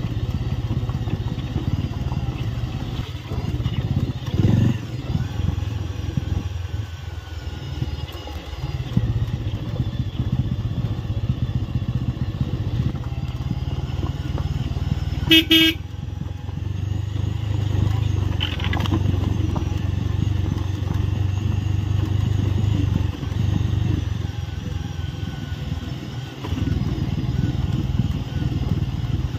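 Bajaj Avenger 220 Street's single-cylinder engine running steadily as the motorcycle rides over a rough gravel track, with one short horn beep about halfway through.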